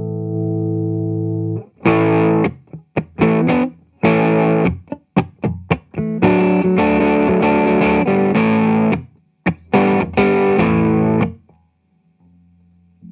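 Electric guitar played through a Vox AC30 2x12 valve combo amplifier: a held chord rings out, then comes a run of strummed chords cut off sharply between strokes. The playing stops about eleven seconds in, leaving a faint low hum.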